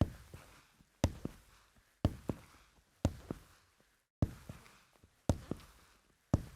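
Boots walking slowly on a hardwood floor: about one step a second, each a heel knock followed closely by a lighter toe tap.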